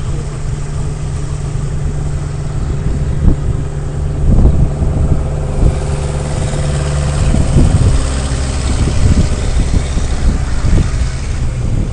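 Off-road vehicle's engine running, getting louder about four seconds in as it revs, with scattered knocks and thumps over the steady engine note.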